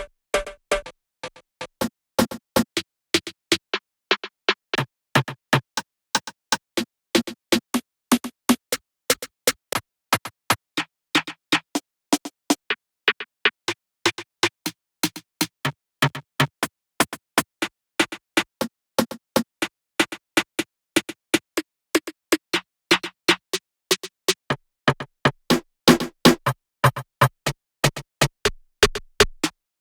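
Short electronic drum and synth one-shot samples from a dembow/reggaeton sound library, auditioned one after another at about three a second, each a brief separate hit.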